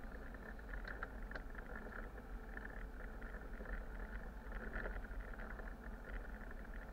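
Steady running noise of a city bus on the move, heard from up front by the driver: engine hum and road noise with a few faint rattles and ticks.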